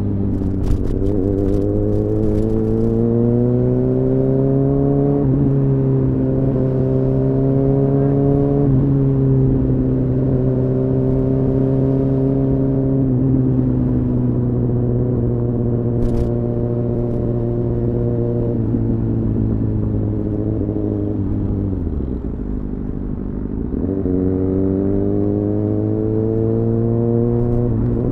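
Kawasaki Ninja ZX-6R's inline-four engine with an Akrapovic exhaust, under way and heard from inside a bag. The revs climb and drop back at upshifts about five and nine seconds in, hold steady for a stretch, then fall off briefly with the throttle closed. After that they climb again toward the end.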